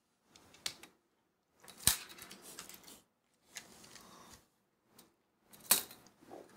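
Handling noise as unravelled paracord is laid out and straightened along a tape measure on a wooden tabletop: short bursts of rubbing and rustling, with a sharp tap about two seconds in and another near the end.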